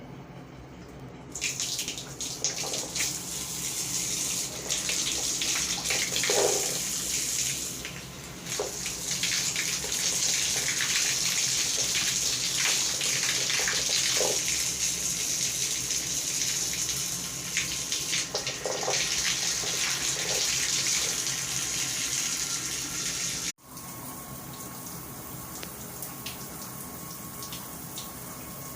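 Water running hard from a tap, a loud steady hiss over a steady low hum. About 23 seconds in the water stops abruptly, leaving the hum and a faint steady tone.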